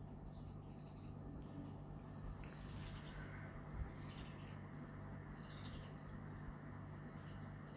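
Faint background: a steady low electrical hum with scattered high, faint chirping noises coming and going.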